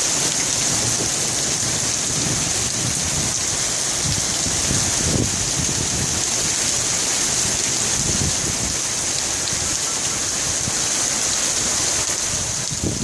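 Heavy rain pouring down onto water and hard surfaces: a steady, dense hiss, with irregular low rumbling underneath.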